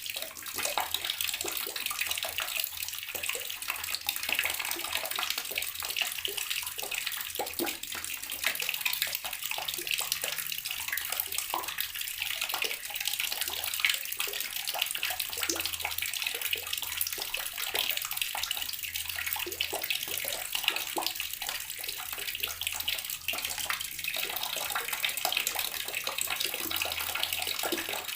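Water running steadily from a tap and splashing below it, a continuous hissing splatter.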